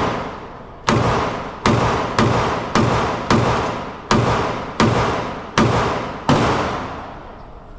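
Nine gunshots in a steady string, one roughly every half to three-quarters of a second, each ringing off in a long reverberant tail from the shooting range's enclosure before the next.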